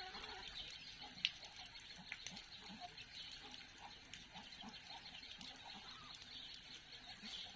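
Faint animal calls, short and repeated every half second or so, over a steady hiss, with one sharp click about a second in.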